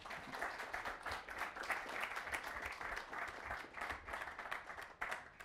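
Audience applauding: many hands clapping at once, starting quickly and dying away near the end.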